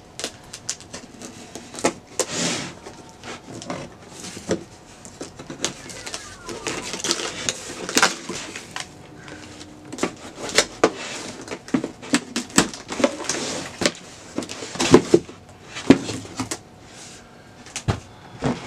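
A package being opened and unpacked by hand: irregular rustling and crinkling with many sharp clicks and knocks from handling, loudest about fifteen seconds in.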